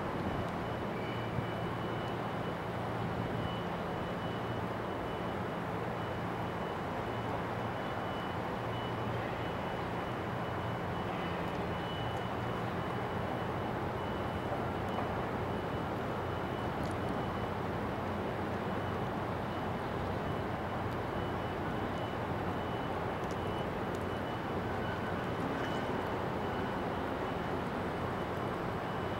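Large car ferry's diesel engines running with a steady low hum under a constant wash of harbour noise, with a faint steady high whine throughout.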